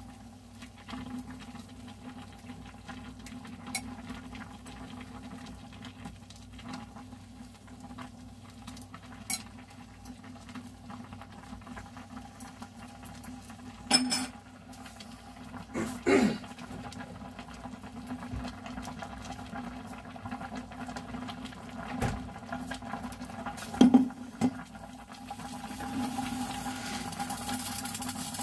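Ramen noodles and dumplings simmering in a glass saucepan on an electric hob: a soft bubbling patter, with a few sharp knocks and clinks against the pot. The bubbling grows louder near the end as the pot comes back to a full boil.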